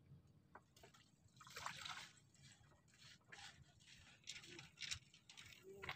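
Faint water splashes and sloshing as handfuls of groundbait are tossed from a plastic basket into the lake. There are short bursts a little over a second in and again around four to five seconds.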